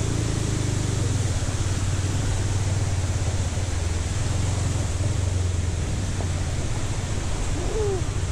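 Motorcycle running steadily on the road: a low, even engine drone under a constant rush of wind and road noise.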